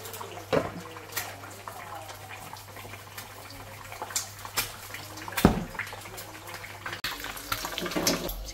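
Kitchen cooking sounds: a steady hiss with several sharp knocks and clatters of utensils.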